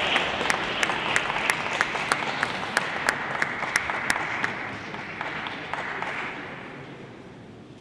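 Arena crowd applauding a won point, with many sharp individual claps, dying away near the end.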